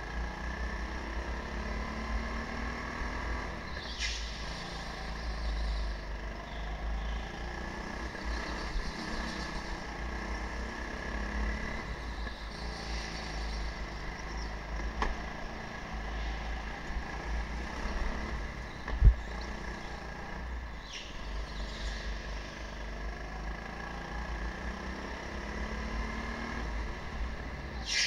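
Rental go-kart running around an indoor track, recorded from a camera on the kart itself, with its motor note rising and falling through the corners over a constant low rumble. A loud low thump comes about two-thirds of the way through.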